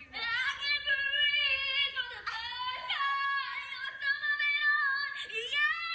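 A young female voice, very high-pitched, singing or yelling in long held notes that waver and slide up and down, with short breaks between them.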